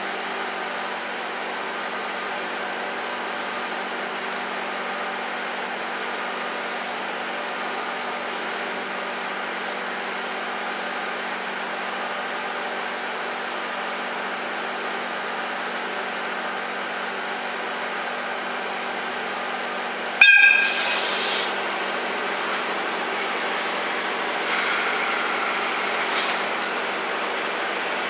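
ED75 electric locomotive standing with a steady hum from its running equipment. About two-thirds of the way in, its whistle gives one short, sharp blast, the departure whistle for the train pulling out.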